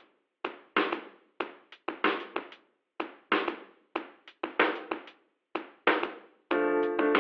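Background music: a percussive beat of sharp drum-like hits, joined near the end by sustained keyboard chords.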